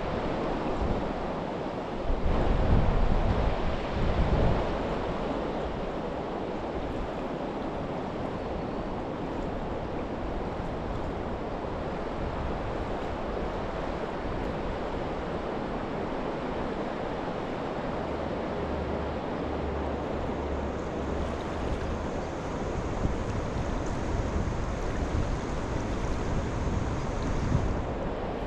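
River water rushing steadily, with gusts of wind buffeting the microphone in the first few seconds and again near the end.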